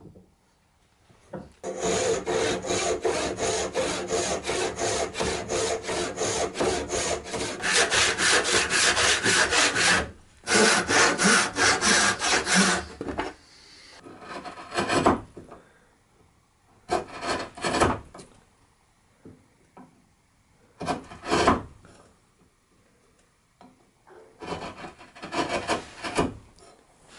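Hand saw cutting a tenon in cherry with fast, even strokes for about eleven seconds, broken by one short pause. Then a chisel pares the tenon to its line in a few short scraping bursts.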